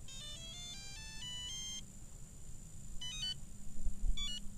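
Radio-control transmitter beeping as its menu is keyed through to bind mode: a quick run of stepped electronic tones, then two short clusters of beeps.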